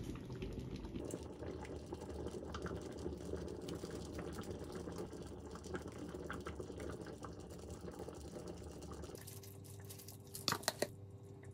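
Thick curry simmering in a saucepan, a soft, steady bubbling and crackling. Near the end come a few sharp rattles and taps as crispy fried onions are shaken out of a plastic tub.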